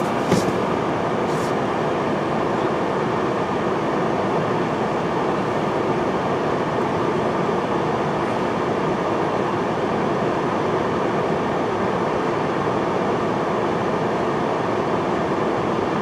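Steady, unchanging rumble of a stopped freight train idling, heard from inside a car.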